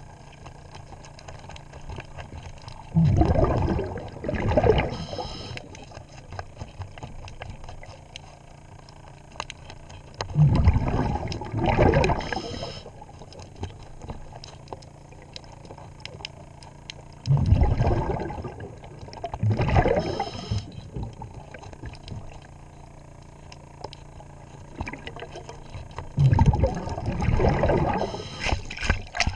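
A scuba diver breathing through a regulator underwater: four breaths about seven seconds apart, each a loud rush of exhaled bubbles lasting about two seconds, with a steady quieter background between them.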